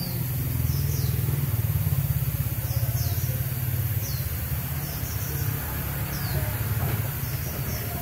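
An engine running steadily with a low drone, joined by short high chirps that recur about once a second.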